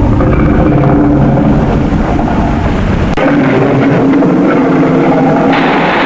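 A loud, continuous engine-like sound effect with steady tones running through it. Its deep bass drops away about three seconds in, and a brighter hiss rises near the end.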